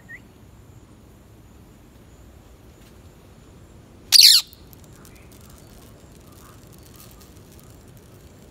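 Rose-ringed parakeet giving one loud, harsh screech about four seconds in, lasting about half a second and falling in pitch, after a faint short rising chirp at the very start.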